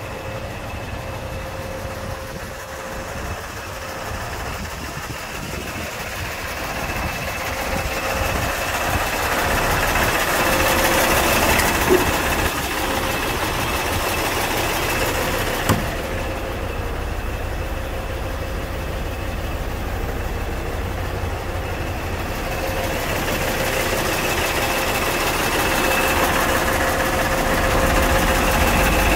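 Mercedes-Benz 2632 K tipper truck's diesel engine idling steadily, growing louder toward the end. Two short sharp clicks stand out partway through.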